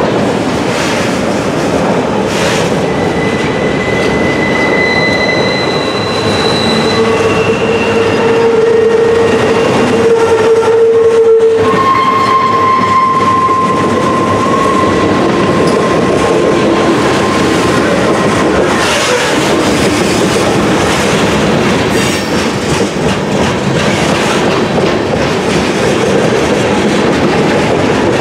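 Freight cars rolling past at trackside: a steady rumble and clickety-clack of steel wheels on rail, with several long squeals at different pitches, one after another, from wheels on the curve.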